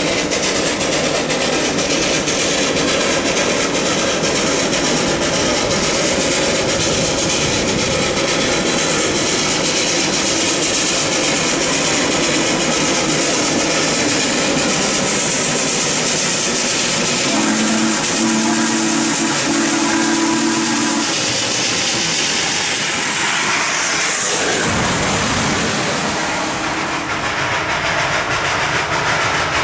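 Steam locomotive No. 734, a 2-8-0, working toward the listener with a steady hiss and exhaust noise. About two-thirds of the way through, its whistle sounds one chord of several notes for about three seconds.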